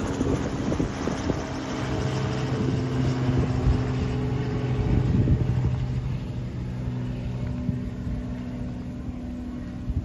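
An engine's steady drone, growing to its loudest about halfway through and then fading, with wind rumbling on the microphone.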